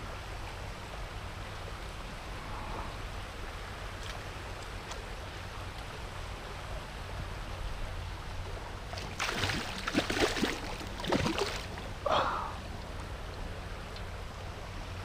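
Steady rush of river water, with a loud flurry of splashing lasting about two and a half seconds from around nine seconds in and one more splash just after. The splashing is a hooked brown trout thrashing at the surface while being played on a fly rod.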